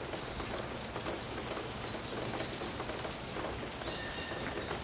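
Steady rain falling, with a few short high bird calls, one early on and another near the end.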